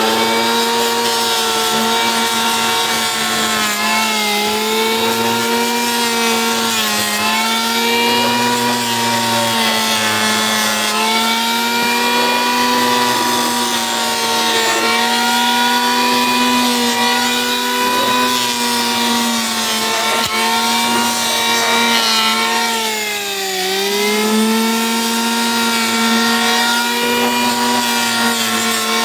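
Electric hand planer running as it shaves down a bowed toon-wood plank. Its steady motor whine sags briefly in pitch each time the cutter bites, with a deeper dip a little after twenty seconds in, and the pitch starts to fall at the very end.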